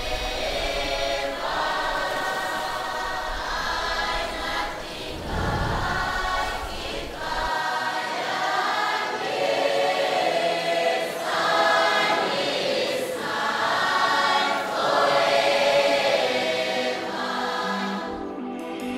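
A choir singing in a run of phrases.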